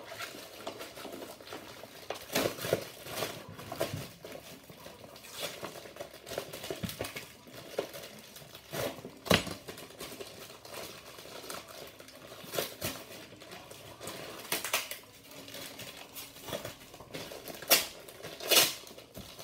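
Clear plastic toy packaging crinkling and rustling as it is handled and pulled open, with scattered small clicks. There are a few sharper snaps, one about halfway through and two near the end.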